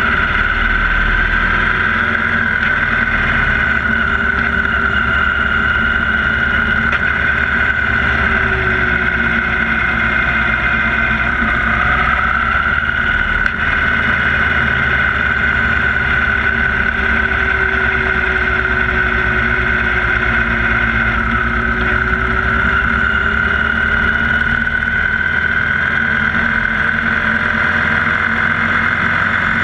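2016 Victory Cross Country 8 Ball's V-twin engine running steadily under way, its pitch rising and falling gently as the motorcycle rides through the curves.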